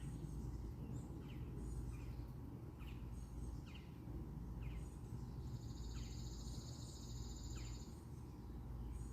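Bird calls: a string of short, high chirps, each sliding downward, with a buzzy high trill lasting over two seconds a little past the middle. A steady low outdoor rumble runs underneath.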